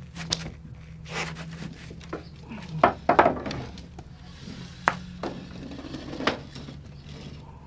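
A man's footsteps, then wooden knocks and creaks as he sits down on a wooden bench about three seconds in, followed by a few sharp clicks and rustles as he shifts. A steady low hum runs underneath.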